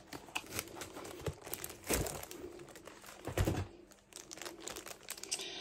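Cardboard crystal-art kit box being opened and the framed canvas slid out and set down: rustling and crinkling of packaging with scattered small clicks, and two soft knocks about two and three and a half seconds in.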